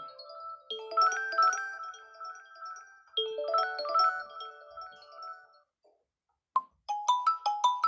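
Stock Redmi Note 7 (MIUI 10) ringtones: a marimba-like melodic phrase plays twice and fades away. After a short gap and a single click, a different ringtone of quick, evenly spaced mallet-like notes begins near the end.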